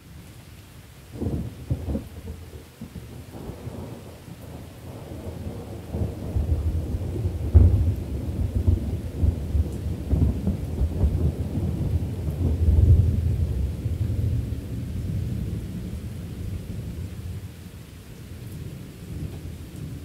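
Rain falling steadily through a long roll of thunder. The thunder opens with sharp cracks about a second in, rumbles louder to a peak in the middle and dies away near the end.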